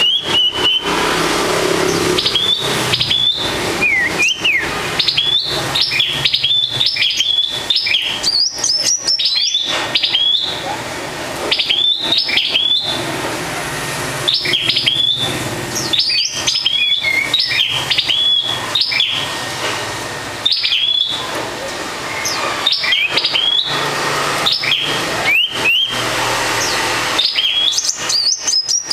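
Caged songbird calling: short high chirps, each a quick upward flick, repeated again and again in quick runs. Frequent clicks and knocks as it moves about the bamboo cage.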